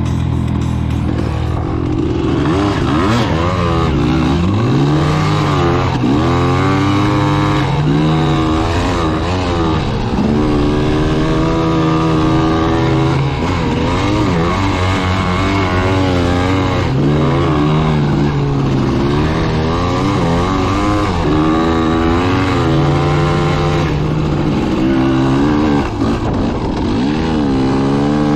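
Off-road vehicle engine running hard while dune riding, its pitch rising and falling every second or two as the throttle is worked.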